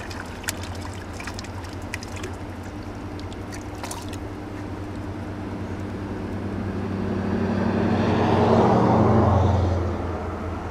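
A motor engine passing by, a steady low drone that builds to its loudest about nine seconds in and then fades. A few light ticks come in the first few seconds.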